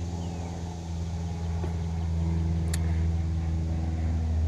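Steady low mechanical hum of a running engine or motor, slowly getting a little louder, with a single faint click a little past the middle.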